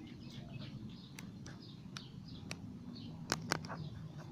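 Small birds chirping in the background, many short high chirps, with a few sharp clicks, two louder ones close together about three and a half seconds in.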